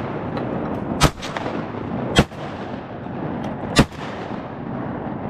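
Shotgun blasts: three sharp reports in about three seconds, spaced a little over a second apart, over a steady background hiss.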